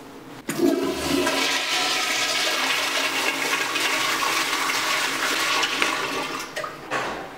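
Water rushing, starting suddenly about half a second in, running steadily for about six seconds and fading out near the end.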